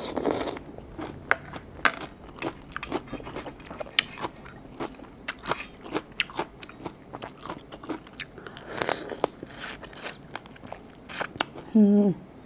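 Close-up eating sounds: irregular sharp crunches and bites into fresh blue swimming crab, shell and legs cracking between the teeth, with chewing in between.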